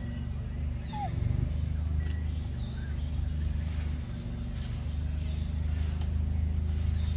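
Forest ambience over a steady low rumble. A bird gives a short whistled call of a few stepped notes about two seconds in and again near the end, and a brief gliding call sounds about a second in.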